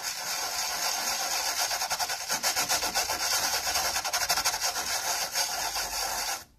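Rapid, steady scrubbing on a circuit board, cleaning the soldering area with isopropyl alcohol; it stops abruptly near the end.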